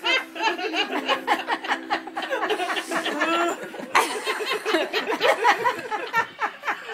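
Women laughing and giggling in short, stifled bursts.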